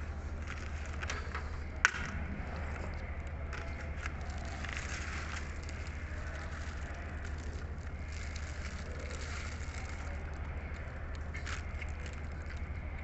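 Eating sounds of chewing and crunching food, with scattered small clicks and one sharp click about two seconds in, over a steady low hum.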